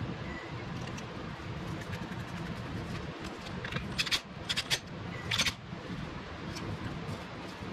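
A few short metallic clinks and rattles, clustered around the middle, of a socket and extension being handled against the stator and engine case, over a steady low background hum.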